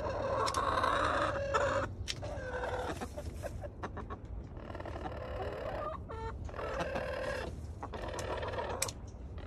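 Hens calling in a string of drawn-out clucks, about five calls each up to a second long, with a few sharp taps between them. The hens are Golden Sexlinks and a Rhode Island Red, agitated as they squabble over a nest box where one is trying to lay.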